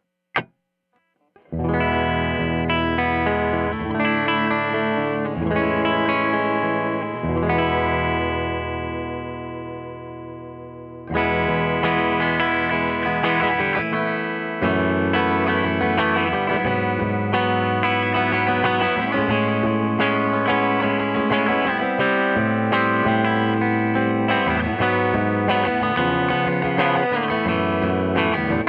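Electric guitar, a 2003 Wayne Custom, played through a Tone King Imperial Mk II amp on a clean tone pushed slightly hot, with a little breakup. Chords start about a second and a half in, and one is left to ring and fade for several seconds. The playing then picks up again about eleven seconds in and goes on with continuous chords and lines.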